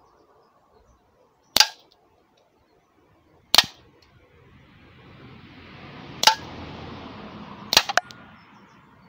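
Umarex Legends S25 CO2 revolver firing at tin cans: sharp cracks about every two seconds, four in all, the last one doubled. A rushing noise swells and fades behind the later shots.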